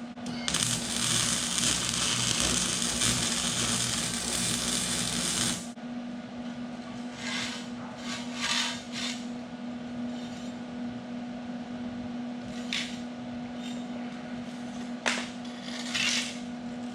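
Electric arc welding on a race car's sheet-metal body: a steady crackling hiss of the arc for about five seconds that cuts off abruptly, then a steady hum with a few short scrapes and clicks.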